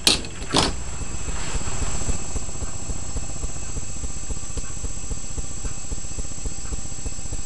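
Hard-drive spindle motor turning a grinding disc, running steadily with a high whine and a fast rattle from the disc's vibration, which comes from the disc still being a little unbalanced. Two short sharp sounds come in the first second.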